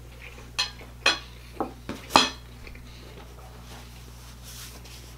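Knife and fork clinking against a plate as steak is cut: five sharp clinks over about two seconds, the last the loudest.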